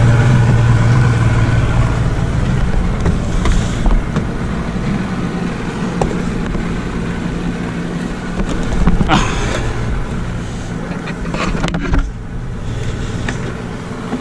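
Boat's outboard motor idling steadily, with a few sharp knocks and clatter; the hum drops in level about twelve seconds in.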